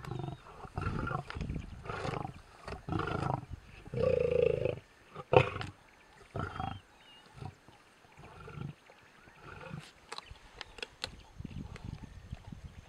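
Male lions growling at a warthog kill: a run of short, rough growls in the first seven seconds, the longest about four seconds in, and a sharp crack just after it. The rest is quieter, with a few sharp clicks.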